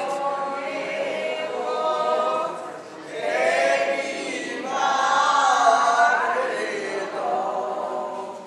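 A group of voices singing together with no instrument heard, in long held notes with a brief pause for breath about three seconds in.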